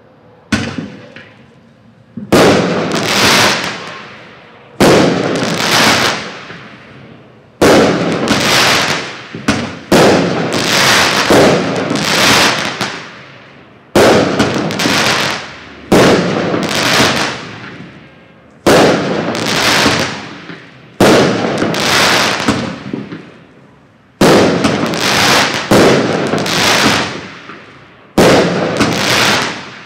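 Black Cat 'Two Minute Fireworks Show' 63-shot consumer aerial fireworks cake firing shot after shot, a loud bang about every two seconds, each dying away over a second or two.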